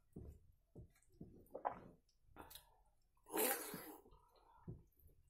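Fingers squishing and mixing soft, starchy rice (phena bhat) with mashed vegetable on a steel plate: small wet squelches and clicks against the metal, with mouth sounds of chewing. A louder, brief, hissy scrape or slurp comes a little past three seconds in.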